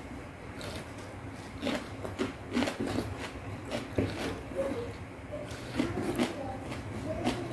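Close-up eating sounds: a metal spoon scraping and tapping on a paper wrapper as it scoops thick-sauced rujak cingur, with chewing and lip smacks between. A string of short, sharp clicks and smacks, irregularly spaced, over a faint steady low hum.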